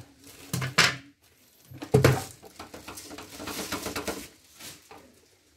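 Clear plastic wrapping rustling and crackling as it is handled, with a sharp knock about two seconds in.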